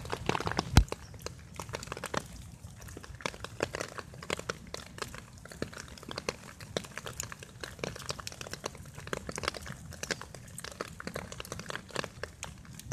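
Fox squirrel gnawing and chewing a nut close to the microphone: a steady run of quick, crisp crunching clicks, with one louder knock about a second in.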